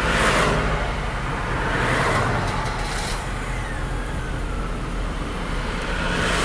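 Car engine running with tyre and road noise as the car moves along a street, heard from inside the car. The noise swells about three times: near the start, about two seconds in, and near the end.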